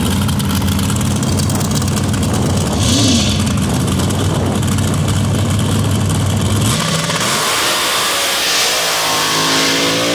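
Supercharged dragster engine idling on the sand-drag start line, with a brief blip of throttle about three seconds in. Near seven seconds the idle breaks off, and an engine is heard revving up with rising pitch toward the end as the run goes down the sand track.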